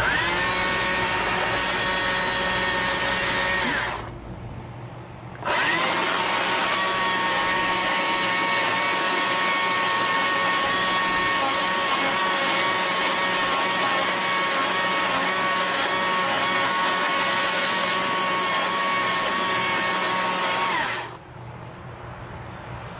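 A handheld power carving tool spinning up and running at full speed on wood, rounding and blending the carving, with a steady high whine. It runs for about four seconds, stops briefly, spins up again, then runs steadily until it cuts off near the end.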